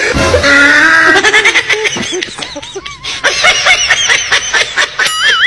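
Laughter, broken into short bursts. A warbling tone comes in near the end.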